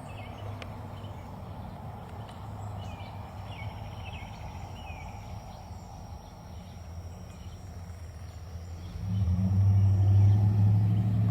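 Faint bird chirps over a steady outdoor background. About nine seconds in, a low engine drone rises and becomes the loudest sound.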